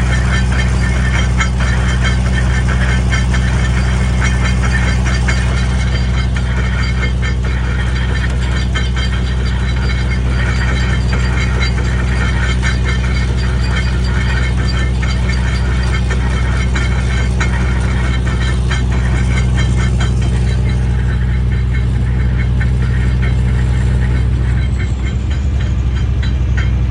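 Kleemann mobile jaw crusher running with a steady low drive hum and a fast metallic rattling and knocking from the jaw side. This is the abnormal noise noticed on the machine after delivery; its cause is not known. The rattling thins out about twenty seconds in.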